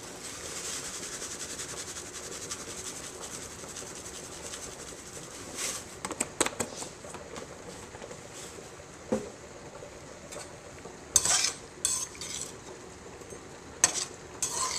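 Shrimp sizzling gently over low heat in a stainless steel sauté pan, with a steady hiss that is strongest in the first few seconds. From about halfway in, a metal utensil clinks and scrapes against the pan in several short bursts as the shrimp are stirred.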